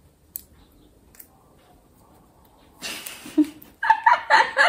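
Faint crinkles of a small paper slip being unfolded, then about three seconds in a breathy outburst turning into high-pitched, pulsed laughter from two women, about four or five bursts a second.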